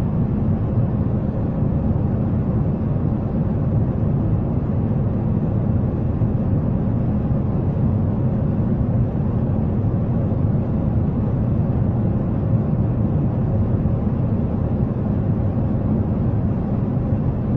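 Steady low drone of a jet airliner in flight, even in level and pitch throughout.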